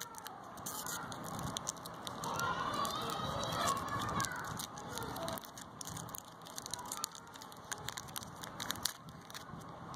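Crinkling and crackling of a foil-lined plastic candy wrapper being peeled open by fingers, a scatter of small irregular crackles throughout.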